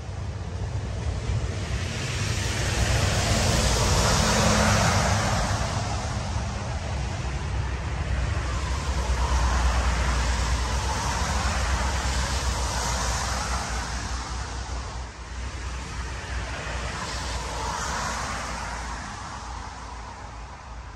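Wind gusting, swelling and easing several times, with a low rumble of wind buffeting the microphone.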